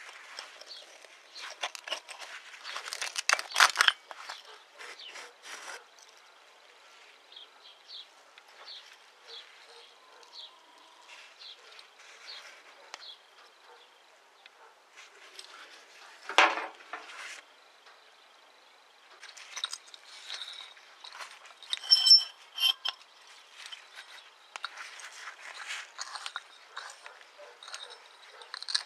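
Metal parts of an old car foot pump handled and taken apart by gloved hands: scattered clicks, scrapes and knocks, loudest about three to four seconds in and again around twenty-two seconds in.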